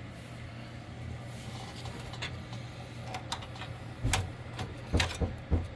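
A motherboard being set into a PC case: a few knocks and clunks of the board and case in the last two seconds, over a steady low hum.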